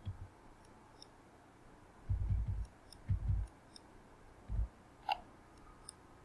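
Scattered faint computer mouse clicks, with a few dull low thumps about two, three and four and a half seconds in.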